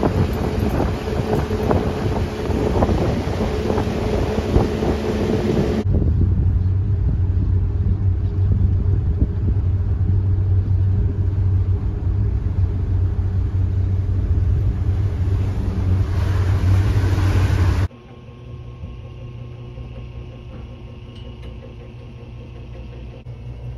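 Pontoon boat's motor running under way, with wind buffeting the microphone for the first few seconds. After that a steady low engine hum carries on, dropping to a quieter hum for the last six seconds or so.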